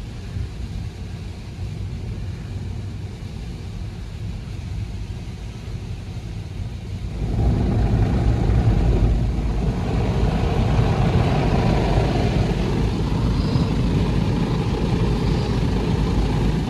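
WashTec SoftCare Prevo rollover car wash heard from inside the car's cabin: a steady low rumble of the machine working over the car, with water and foam washing across the glass. About seven seconds in it grows louder and fuller, and stays that way as the green brushes sweep over the windscreen.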